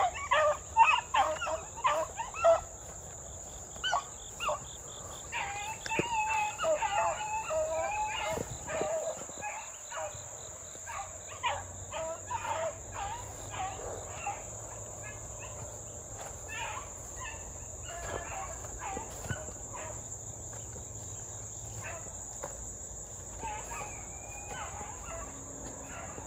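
A pack of beagles baying on a rabbit track: a string of drawn-out, pitched howling barks that come thick and overlapping for the first eight seconds or so, then thin out and grow fainter.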